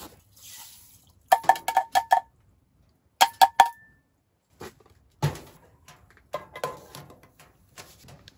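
Metal cookware clinking: two quick runs of sharp, ringing clinks, then duller knocks and rattling.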